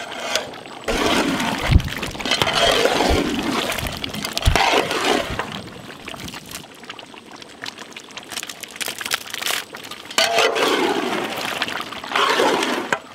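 A large pot of thick mutton gravy being stirred with a long metal ladle and a flat metal spatula: wet, sloshing scrapes of meat and masala against the pot in two spells, with a few dull knocks in the first few seconds.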